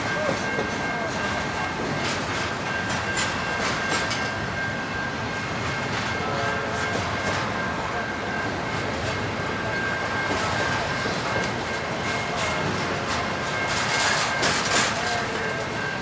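Double-stack intermodal freight cars rolling past on steel rails: a steady rumble and rattle of wheels, with a thin steady high tone over it and louder clusters of clicks a few seconds in and again near the end.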